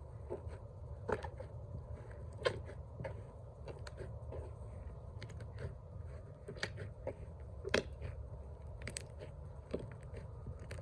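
Slime being kneaded and worked with shaving foam: irregular small wet squelches and pops over a low steady hum.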